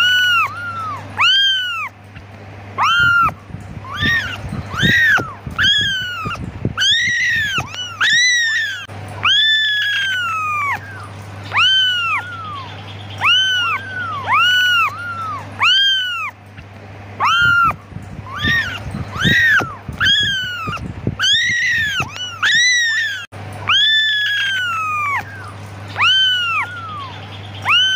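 Young kittens meowing over and over, high-pitched calls that rise and fall, roughly one a second. In two busier stretches more than one kitten calls at once. The kittens are calling for their mother. A steady low hum runs underneath.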